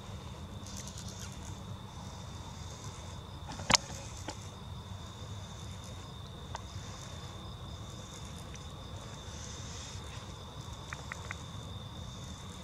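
A steady, high insect trill holding one unchanging pitch over a low rumble. A single sharp click a little under four seconds in is the loudest sound, and a few faint ticks come near the end.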